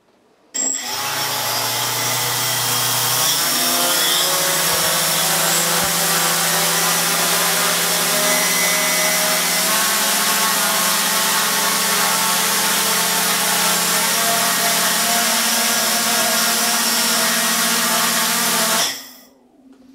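Quadcopter's four Sunnysky X2212 980Kv brushless motors and propellers spinning up about half a second in, stepping up in pitch twice as the throttle is raised, then running steadily under load. This is a bench test run at about 10 amps to check the power module's current calibration. Near the end the motors are cut and wind down quickly.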